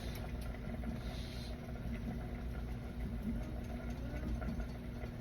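A steady low mechanical hum with a faint held tone, and a few faint small ticks over it.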